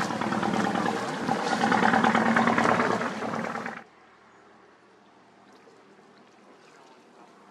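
A motor cruiser passing close by, its engine running and water churning loudly; the sound cuts off abruptly about four seconds in, leaving only faint background.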